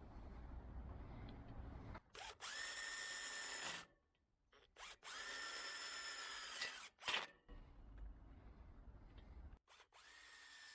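Cordless drill running in two bursts of about two seconds each, each spinning up quickly and then holding a steady whine. A sharp click follows the second burst, and a third run starts near the end.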